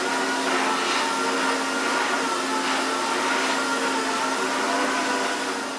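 Paint booth ventilation fans running steadily: an even airflow hiss with a constant hum.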